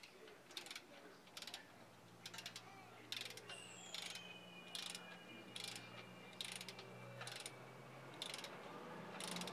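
Mechanical clicking in short bursts, about one every 0.7 seconds, over a low steady hum that starts about two seconds in and fades near eight.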